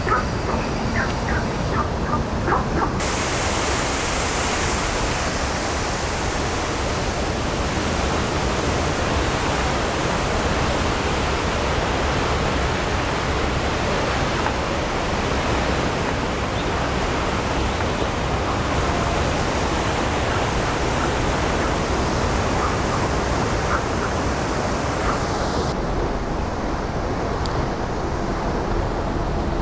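Steady rushing of falling water, a waterfall or fountain, with a bright hiss of spray that fills out from about three seconds in and thins near the end.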